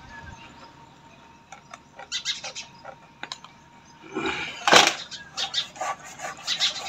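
Clinks, scrapes and rubbing of hands and tools working on a motorcycle front wheel, its tyre levered off the rim and the inner tube pulled out for puncture repair. The loudest is a short scrape nearly five seconds in, with quicker clicking after it.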